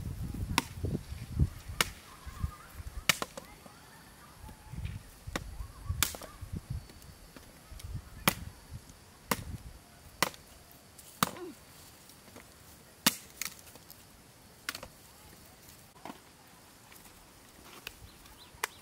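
Machete chopping at a wooden stick: about ten sharp, separate strikes, irregularly spaced a second or more apart. A few duller low thuds come in the first seconds.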